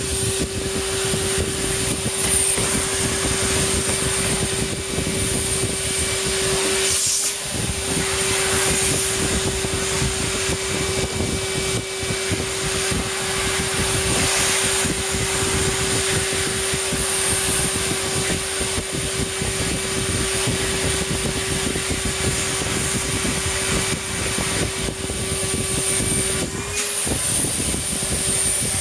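Numatic Hetty cylinder vacuum cleaner running steadily with its filter removed, a constant motor hum over the rush of air. The hum dips briefly twice, about a quarter of the way in and near the end.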